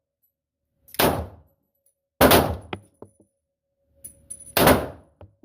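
Beretta Px4 Storm 9mm rotating-barrel pistol fired three times: shots about a second in, a little over a second later, and again about two seconds after that, each with a brief echo.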